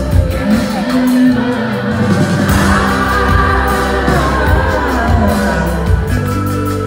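Live pop band playing: drums, electric bass and electric guitar under a sung lead vocal, heard from within the audience.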